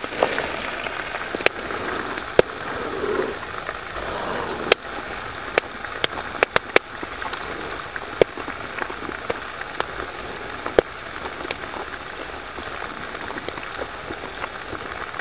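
Meat frying in a pan over a campfire: a steady sizzle with scattered sharp pops.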